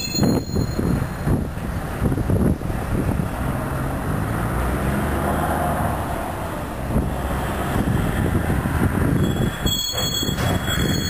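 Freight train of enclosed autorack cars rolling past: a steady rumble of steel wheels on rail, with irregular knocks and clatter.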